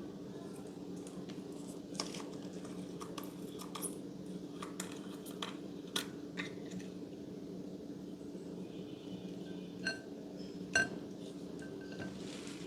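Scattered light clicks and taps of slime containers and tools being handled, then two short ringing clinks about ten and eleven seconds in, over a steady low hum.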